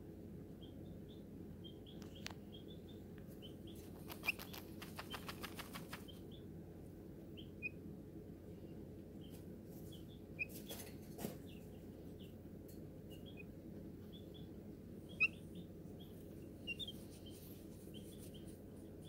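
Baby chick giving soft, short peeps scattered throughout, over a steady low hum. About four seconds in comes a quick run of scratchy rustles, and a few faint clicks follow later.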